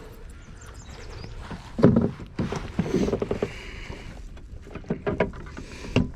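Handling noises in a kayak: irregular knocks, bumps and scrapes against the hull, the loudest about two seconds in.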